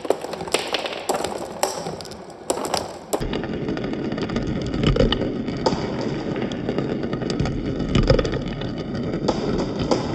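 Marbles rolling and clacking along a marble-run track. Scattered sharp clicks and taps for about three seconds, then a steady rolling rumble dotted with frequent clicks and knocks.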